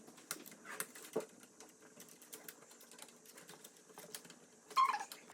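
Light plastic clicks and taps of a Roomba 692's bumper and shell being handled and snapped back into place, irregular and quick like typing. A brief louder sound comes near the end.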